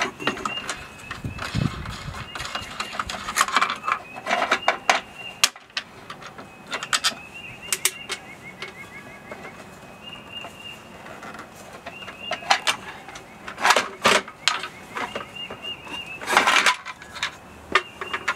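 Screws being backed out of an aluminum router-table fence by hand: scattered small metallic clicks and clinks of the screwdriver and loose screws, with a few louder clatters in the second half.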